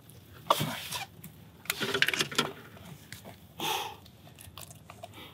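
Handling noise as a large snook is held on a boat's gunwale and a circle hook is worked out of the corner of its mouth: a few short scuffs and knocks.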